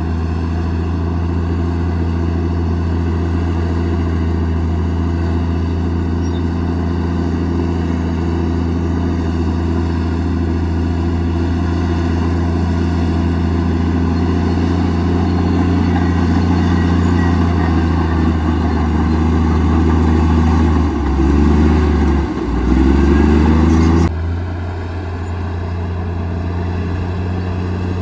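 Komatsu D58E bulldozer's diesel engine running steadily and growing louder under load. About three quarters in, the engine note dips and climbs back twice, then drops abruptly to a quieter steady run near the end.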